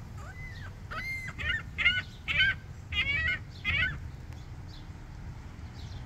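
Gulls calling: a quick run of about six short, high, pitched cries over the first four seconds, the loudest near the middle of the run.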